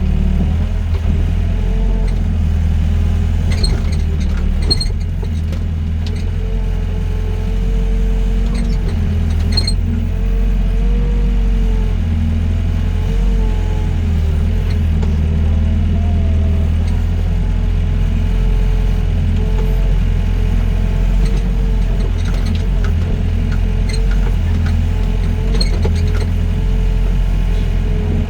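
Doosan DX55 mini excavator's diesel engine running steadily under load, with a hydraulic whine that wavers up and down in pitch as the machine works, and a few faint clanks.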